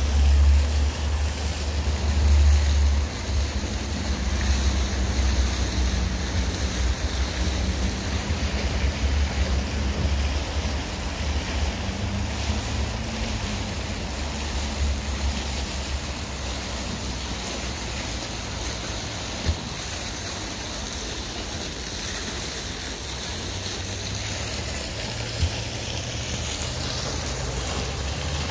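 Fountain jets splashing steadily into a canal, an even rushing of water, under a low rumble that is heaviest in the first few seconds. Two brief clicks are heard in the second half.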